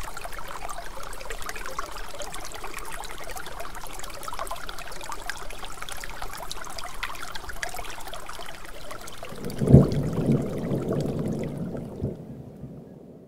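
Water splashing and trickling, with a sudden louder, deeper splash about ten seconds in that dies away over the next two seconds, then the sound fades out.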